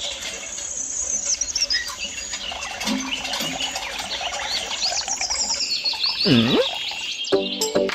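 Birds chirping and twittering, many quick high calls overlapping, with one deep call that swoops down and back up about six seconds in. Music comes in near the end.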